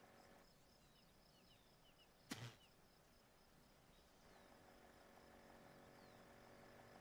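Near silence: faint outdoor ambience with a low steady hum and a few faint high chirps, broken by one sharp click about two seconds in.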